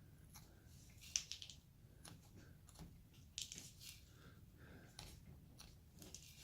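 Hand carving tool slicing small shavings from basswood: faint, crisp cutting strokes, the clearest about a second in, around three and a half seconds, and near the end.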